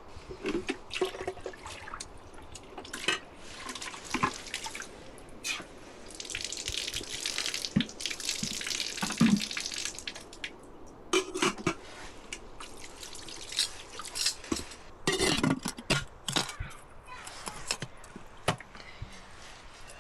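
Water splashing and pouring, with a hissing stretch in the middle, amid scattered knocks and clatters.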